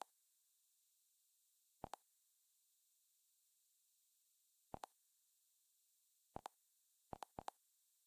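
Near silence broken by faint short clicks, each one doubled, six times at uneven gaps and coming faster near the end, in step with moving through an Android TV channel guide.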